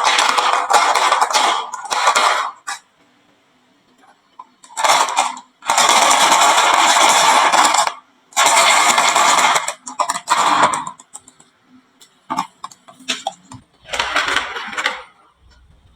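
Marbles clattering and rolling down a wooden marble-run slope in several bursts of a few seconds each, with scattered single clicks and a shorter rattle near the end.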